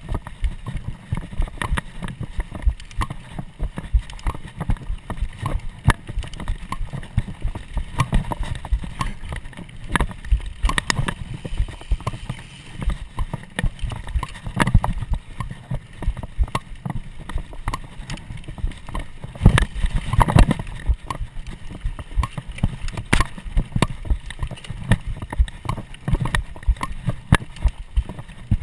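Mountain bike ridden fast over a bumpy dirt trail, heard from a camera strapped to the rider: constant irregular clattering and knocking of the bike over bumps, with wind rumble on the microphone. A heavier run of knocks comes about twenty seconds in.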